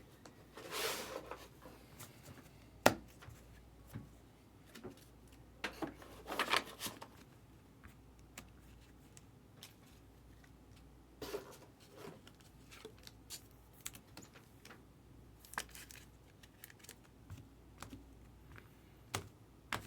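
Trading cards and their packaging being handled: scattered rustles, brushes and light clicks, with one sharp click about three seconds in.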